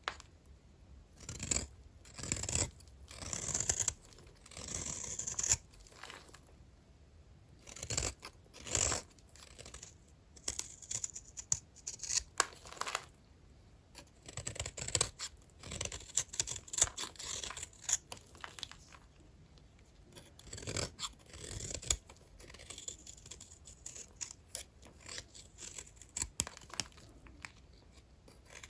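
A blade cutting through small bars of old, dry hotel soap: a run of short crunchy scraping strokes at an irregular pace, with brief pauses between them.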